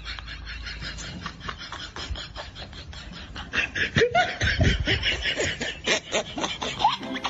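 Continuous laughter in quick, short pulses, growing louder about halfway through, with a few squealing rises and falls in pitch.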